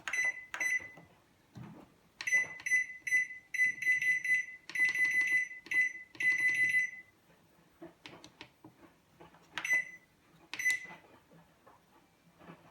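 Daewoo microwave oven's control panel beeping: a string of short, high beeps at uneven spacing, a few held longer, as if keys are being pressed, then two more single beeps after a pause. Faint clicks sound between them.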